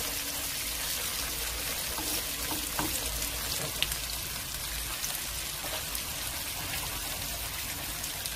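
Mung bean pancake batter frying in hot oil in a pan: a steady sizzle with scattered small crackling pops.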